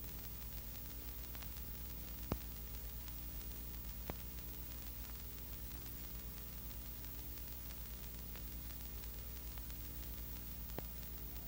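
Low, steady electrical hum under a hiss, the background noise of an old videotape transfer, with three faint clicks at about two, four and eleven seconds in, the first the sharpest.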